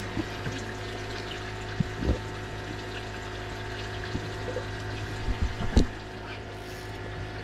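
A steady motor hum with water running, and a few short knocks about two seconds in and again between five and six seconds in.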